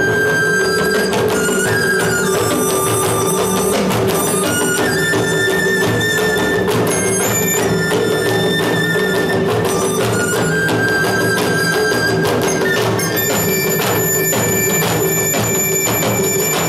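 Live traditional music from a drum ensemble: a transverse flute plays a melody in long held notes over steady drumming and a sustained low drone.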